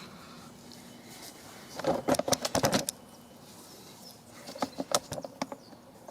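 Metal parts and hardware clinking and rattling as a stabilizer link bar is fitted into the suspension: a quick run of sharp clicks about two seconds in, and another near the end.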